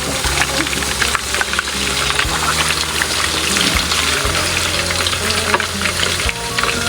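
Chicken thighs frying in hot oil in a pan: a steady sizzle thick with small pops and crackles.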